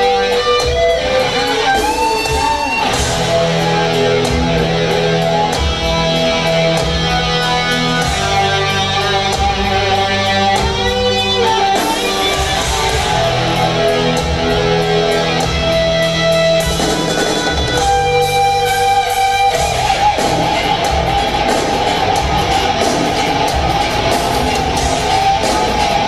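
Rock band playing a heavy instrumental live: distorted electric guitar over bass and drums with sustained melodic lines, turning into a denser, noisier wash of sound about three-quarters of the way through.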